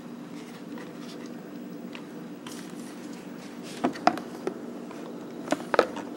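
Handling noise as a handheld camera is moved: two clusters of sharp clicks and taps, about four and about five and a half seconds in, over a steady low hum.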